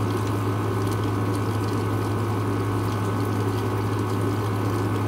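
A steady, unbroken low machine hum with a constant hiss over it.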